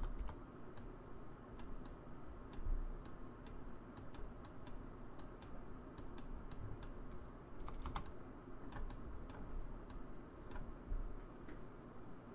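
Computer keyboard keys clicking irregularly, about two a second, over a faint steady low hum.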